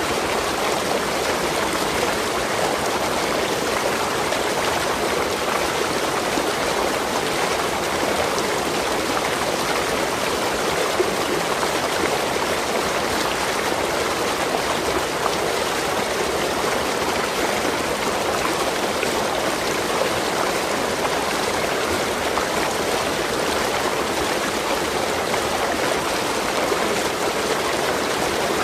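Waterfall: water falling and running, a steady rushing noise that does not change.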